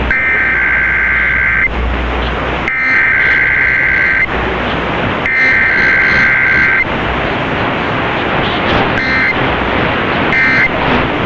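Emergency Alert System SAME header over AM radio: three raspy digital data bursts of about a second and a half each, with short gaps between. Near the end come three much shorter bursts of the same tones, all over a steady hiss of radio static.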